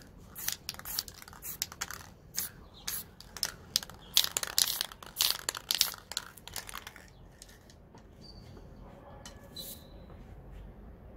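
Hands-on spray-paint art work on the board: a quick, uneven run of short scratchy hissing bursts, thickest about four to five seconds in, dying away about seven seconds in.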